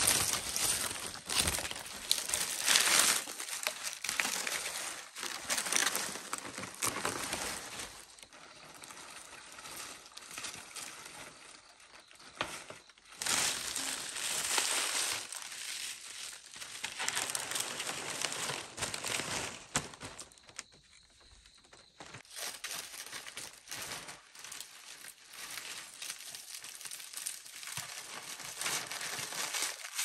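Irregular crinkling and rustling in uneven bursts, loudest in the first few seconds, with a brief lull about two-thirds of the way through.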